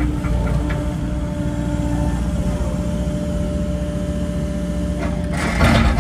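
An engine running steadily, a low hum with a constant drone, with a brief burst of harsher noise near the end.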